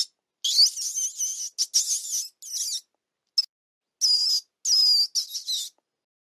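Mouse squeaking: clusters of short, high-pitched squeaks with sudden silent gaps between them, stopping near the end.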